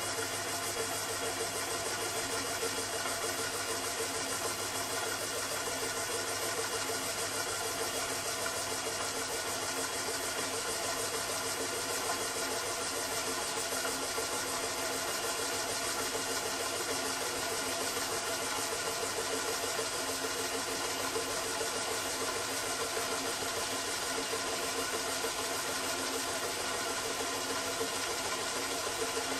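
Stainless steel pot heating on an electric hotplate, giving off a steady, engine-like hum over a hiss, much like an engine idling.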